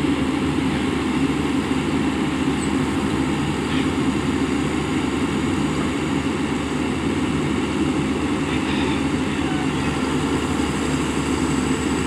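Tracked excavator's diesel engine idling steadily.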